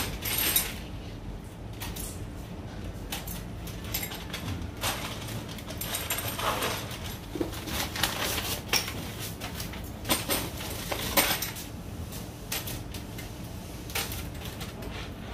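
Metal fishing spoon lures clinking against each other and rustling in a plastic bag as they are handled, in irregular light clicks and jingles.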